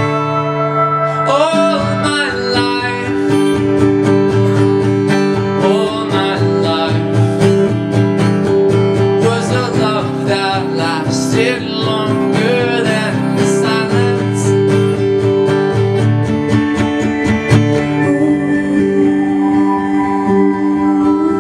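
Live acoustic music: an acoustic guitar strummed and picked in a steady rhythm, with a man singing over it.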